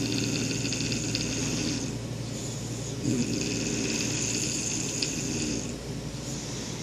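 Snoring: two long fluttering snores about three seconds apart.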